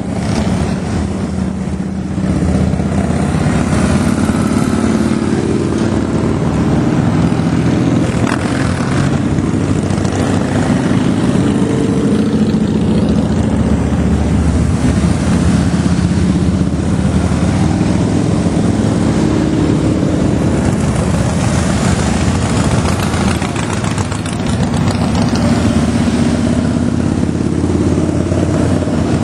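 A long procession of large touring motorcycles riding past one after another, a steady loud engine rumble with brief lulls between groups of bikes.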